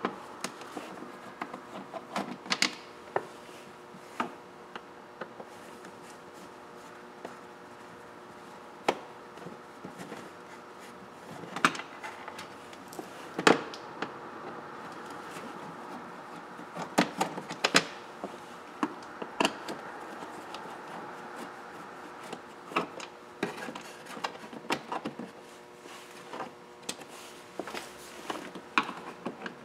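Hand-held Phillips screwdriver backing screws out of a plastic trim panel under a car's dashboard: scattered, irregular small clicks and scrapes, with a faint steady hum underneath.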